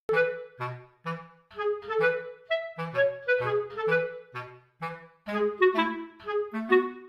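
Background music: a light, bouncy tune of short, separate notes over a simple bass line, starting suddenly after a moment of silence.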